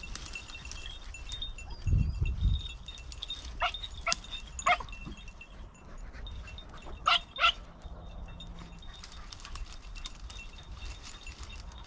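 Podenco hunting dogs yelping in short cries, three about four seconds in and two more about seven seconds in, over a steady jingle of collar bells. A couple of low thumps come about two seconds in.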